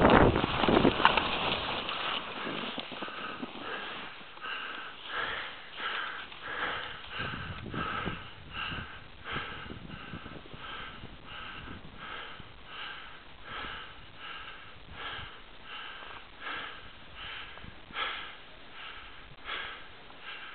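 Heavy, rapid breathing close to the microphone, a short puff of breath about every two-thirds of a second, as a skier catches his breath after a steep, tiring run. A loud burst of rustling and wind noise comes right at the start.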